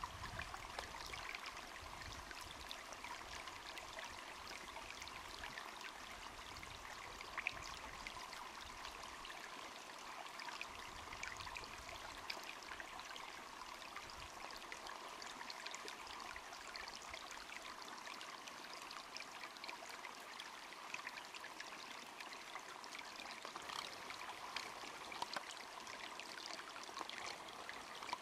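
Quiet, steady rushing noise like running water, with scattered light crackles and one sharper click about seven seconds in.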